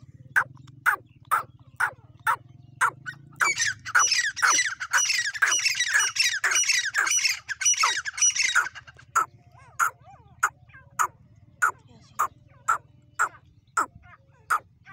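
Francolin (teetar) calling over and over in sharp, harsh notes about two a second. A second bird joins for several seconds in the middle, so the calls overlap in a dense burst before settling back to the single repeated call.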